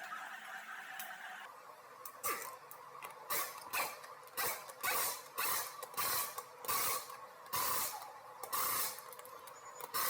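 A hand ratchet clicking through a steady run of about a dozen short strokes, starting after a second or so, as the wheel lug nuts are run down.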